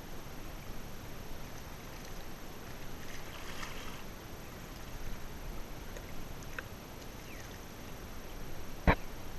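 Water lapping against a kayak's hull, a steady wash, with a single sharp knock a little before the end.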